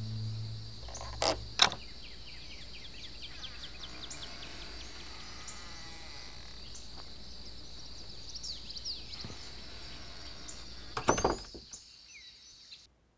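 Forest ambience with a steady high insect hum. Two sharp clicks of a panel door's knob and latch come about a second and a half in, and a short cluster of loud knocks, a door thunking shut, comes about eleven seconds in.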